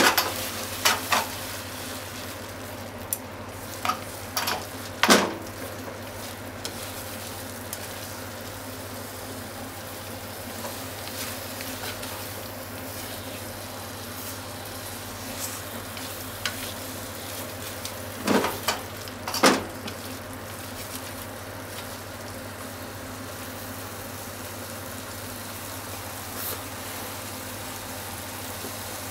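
Okra and deep-fried tofu stir-fry sizzling steadily in a frying pan while being stirred with chopsticks. The chopsticks knock against the pan several times in the first five seconds and twice more past the middle.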